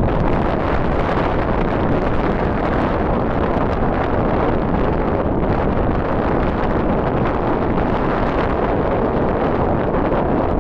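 Steady wind buffeting the microphone, a loud, even rushing with no thunder standing out.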